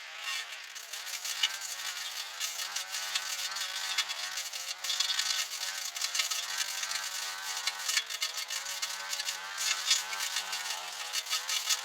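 Small handheld two-stroke engine running at high revs, its buzzing pitch wavering up and down as the load changes, with crackling running through it.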